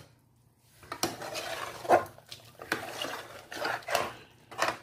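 Metal spoon stirring thick mutton gravy and scraping the sides of a metal pressure cooker, in separate scraping strokes about one a second, starting about a second in.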